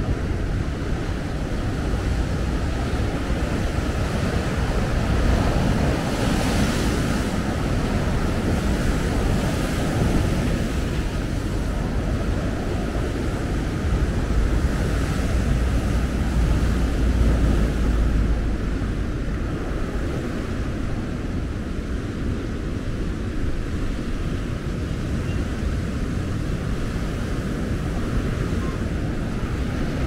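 Surf breaking and washing on the shore under strong wind, with wind buffeting the microphone; the rumble swells about a fifth of the way in and again past the middle.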